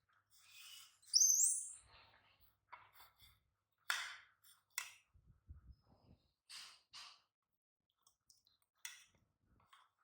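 A baby monkey gives one short, very high-pitched squeak about a second in, rising sharply in pitch. It is followed by several soft breathy puffs and light rustles.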